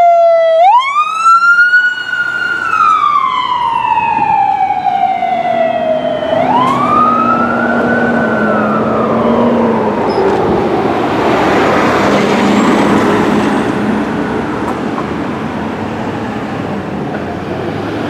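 Fire department rescue ambulance's siren wailing: it rises quickly, holds, then slides slowly down, twice, then fades out about ten seconds in as the rig pulls away, leaving traffic noise.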